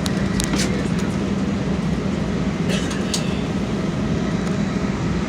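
Steady airliner cabin noise: engine and ventilation hum with a low drone, with a couple of faint clicks near the middle.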